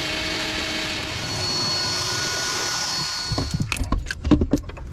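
A small electric motor running with a steady whir. It cuts out a little past three seconds in, and a few irregular metallic clanks and knocks follow.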